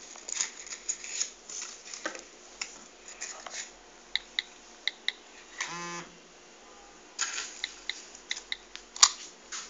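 A series of small, sharp clicks and taps, several of them in quick pairs, made while a phone and computer are being worked, with a brief buzzy tone about six seconds in.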